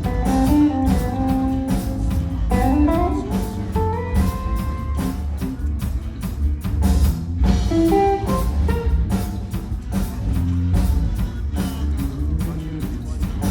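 Live blues-rock trio jamming: electric guitar playing lead lines with a long bend a few seconds in, over bass and a steady drum kit beat.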